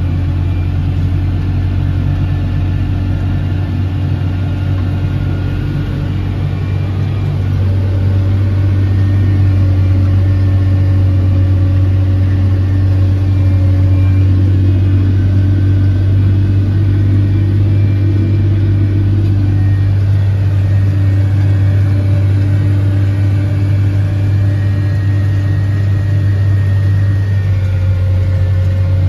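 John Deere tractor engine running steadily under load while pulling a seed drill, heard from inside the cab as a steady low drone. It grows a little louder about eight seconds in.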